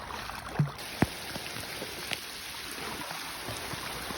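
Heavy rain falling steadily, a continuous hiss with a few sharper, louder drops standing out in the first couple of seconds.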